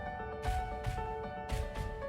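Background music: a melody of held notes over a steady drum beat.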